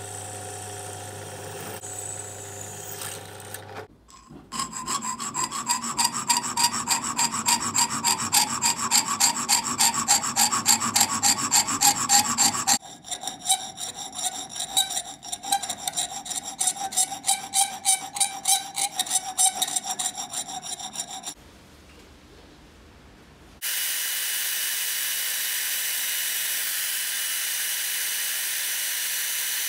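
A drill press runs for the first few seconds. Then a hand file scrapes across the edge of an aluminium plate held in a bench vise, in quick, even strokes, with a short break and a change in tone about halfway. After a brief lull, a band saw starts cutting the aluminium plate with a steady hiss.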